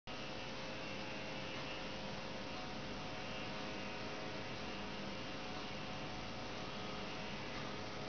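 Steady electrical hum with an even hiss, from household appliances running close by; no bird calls.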